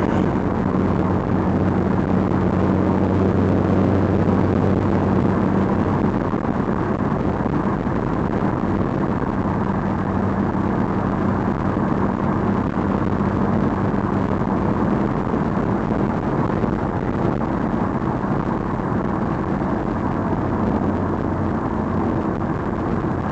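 Steady low motor hum under an even rushing noise, like a vehicle running; the hum fades somewhat in the middle and strengthens again near the end.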